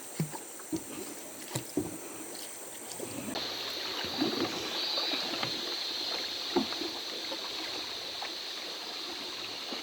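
Running river water with irregular splashes and knocks from a paddle working a small boat.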